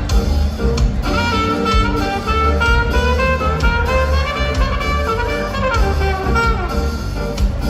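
Instrumental ska: a horn section of saxophone and brass plays over bass and drum kit with a steady beat. Midway, a horn line climbs and then falls back.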